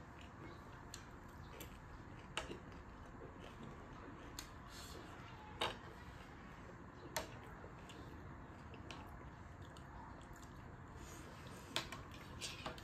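Metal spoons and forks clicking against ceramic plates, a few sharp separate clicks spread through a faint steady room hiss.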